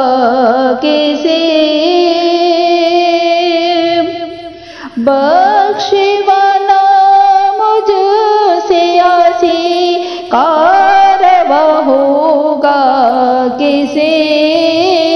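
A woman singing an Urdu naat, a devotional poem in praise of the Prophet, in long held melodic lines with a brief pause about four seconds in.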